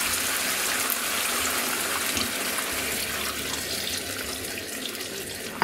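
Hot broth pouring from a measuring jug into a paella pan of frying rice and vegetables, a steady splashing that eases off toward the end as the jug empties.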